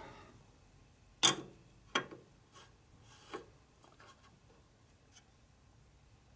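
Precision machinist's level being handled on a lathe bed: a sharp metal clack as it is set down about a second in, a second knock shortly after, and a softer one a little past three seconds, with light rubbing between.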